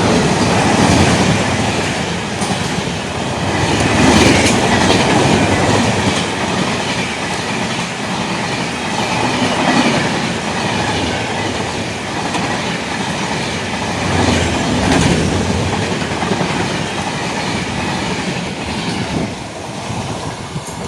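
Express train running past at speed: a steady, loud rumble of wheels on the rails with a clickety-clack over the rail joints, swelling and easing a little as the coaches go by.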